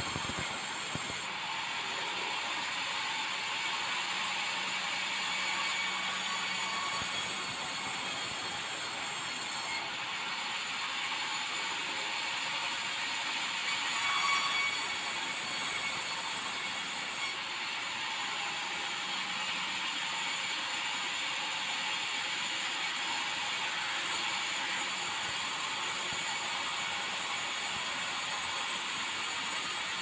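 Sawmill band saw headrig running and ripping bengkirai hardwood: a steady hissing noise whose tone shifts a few times as the cut changes.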